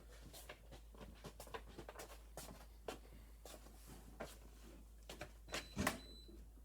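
Scattered light clicks and knocks of small objects being handled, with a louder cluster of knocks near the end.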